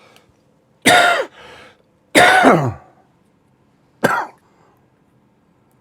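A man coughing three times, loud and short, each cough falling in pitch, the last one shortest.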